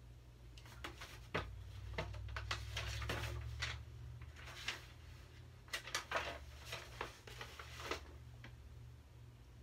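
Pages of a picture book being flipped and handled: a run of papery rustles and soft clicks, on and off for most of the stretch.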